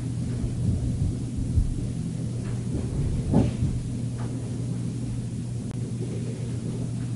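Steady low hum with soft rustling and bumping of bedding. One louder, brief rustle comes about three seconds in.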